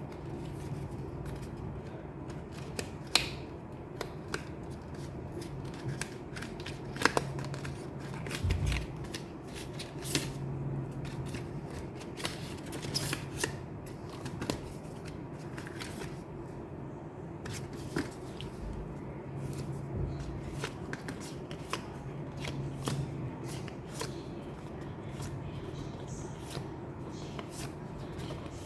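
Hands handling cards and their packaging: scattered rustles, taps and clicks, a few sharper ones, over a steady low background hum.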